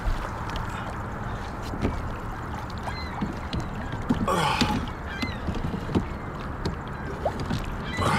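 Water lapping against a fishing kayak's hull, with knocks and rustles as the rod and gear are handled. There is a short louder rush about four seconds in and a thump near the end.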